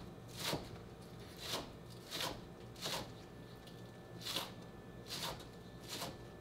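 Someone chewing a mouthful of karaage fried rice close to the microphone: about seven soft, wet crunches, roughly one every 0.7 seconds.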